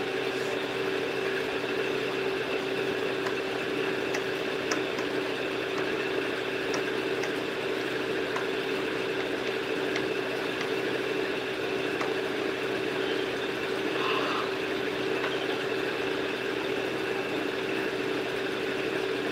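Steady mechanical hum with a constant droning tone, with a few faint ticks.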